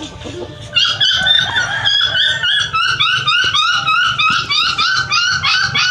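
A puppy whining in a fast run of short, high, rising yelps, about three or four a second, starting under a second in and going on without a break.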